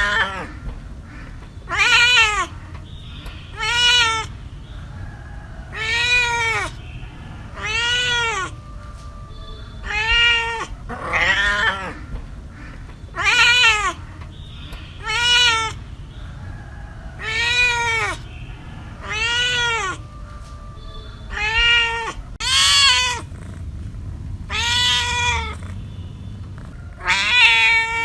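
A cat meowing over and over, about one meow every two seconds, each call rising and then falling in pitch.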